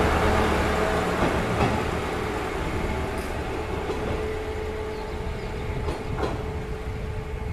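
KiHa 20 diesel railcar's DMH17 diesel engine running as the car moves away, its rumble and a steady hum slowly fading. A few faint clicks come from the wheels on the rails.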